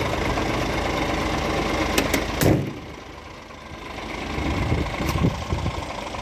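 Scania G490 truck's six-cylinder diesel idling steadily. About two seconds in come a few sharp clicks and then the thud of the cab door shutting. After that the idle is quieter, heard from outside the cab, and grows louder again as the front of the truck is approached.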